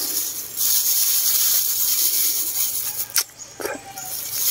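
A long, steady hiss of breath drawn or blown through pursed lips while chewing duhat fruit with salt, ending at about three seconds, followed by a sharp click and light rustling.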